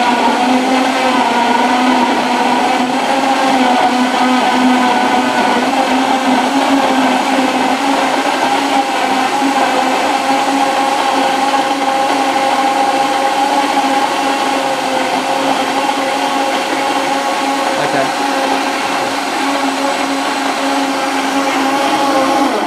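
Semak 1380-watt power blender running steadily, its motor giving a loud, constant whine as it blends raw pumpkin chunks and water into a smooth puree.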